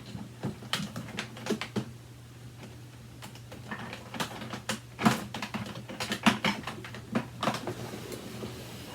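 Irregular hard plastic clicks and knocks from handling a Kenmore Progressive upright vacuum cleaner and its power cord, thickest in a cluster about five to seven seconds in.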